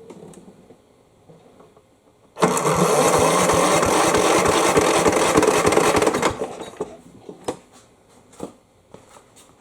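Craftsman push mower's electric starter cranking the engine for about four seconds with the spark plug out and a compression gauge in the plug hole, the engine turning over in rapid even pulses without firing. This is the cranking of a compression test.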